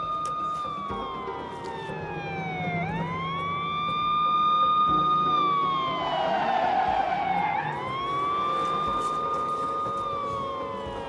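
Siren wailing. Its pitch climbs quickly, holds high, then slides slowly down before climbing again, about every four and a half seconds.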